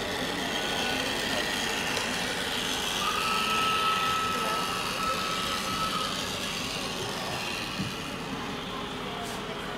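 Model-railway hall ambience: a steady hubbub of the room with model trains running on the layout. A thin steady tone sounds for about three seconds in the middle, and there is a small knock near the end.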